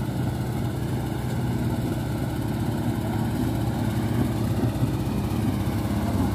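Willys-style jeep engine running steadily as the jeep creeps up a muddy off-road track.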